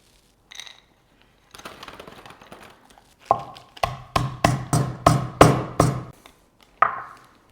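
Roasted peanuts being crushed: a short rattle of nuts, then about ten pounding strikes at roughly three a second, each with a slight ring, and one last strike near the end.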